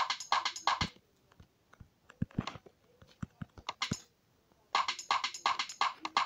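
Korg Kaossilator app playing a 127 BPM electronic loop on its HouseQ program: fast, clicky synth-percussion hits. They thin out about a second in to a few low thumps and scattered hits, and the dense pattern comes back near the end.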